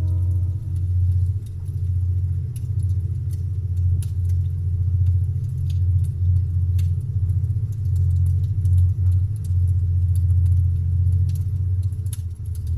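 Campfire crackling, with scattered sharp pops and snaps from the burning wood. Under it runs a steady deep rumble, louder than the crackles.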